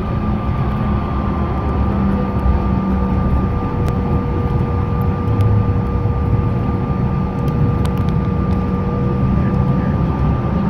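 Cabin noise of a CRJ700's rear-mounted GE CF34 turbofans running steadily at low taxi power, a constant whine over a deep rumble.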